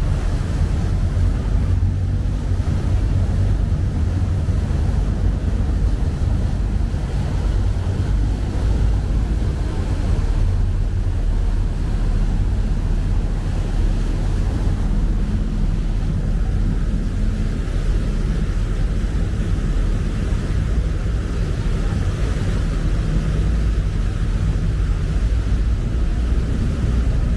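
Steady low rumble of a passenger boat's engines under way, with wind buffeting the microphone.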